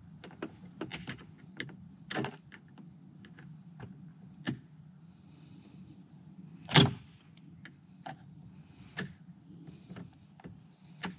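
Cordless drill running as its bit drills out the pop rivets holding an RV cargo door lock, with many small clicks and knocks of the bit against the metal and one loud clack about seven seconds in.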